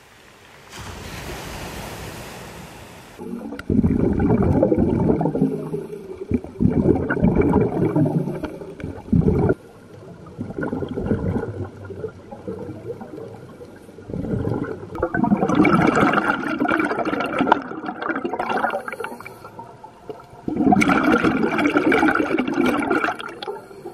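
Underwater bubbling and gurgling from a scuba diver's exhaled air bubbles, heard in repeated bursts of two to three seconds with short pauses between them, after a brief hiss of water at the start.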